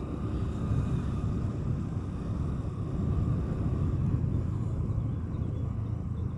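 Steady low rumble of a vehicle moving along a road: engine, tyre and wind noise heard from on board.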